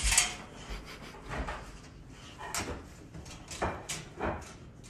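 Slide-bolt latch and door of a metal wire dog crate rattling and knocking as a dog licks and pushes at it from inside: about five separate knocks at uneven intervals.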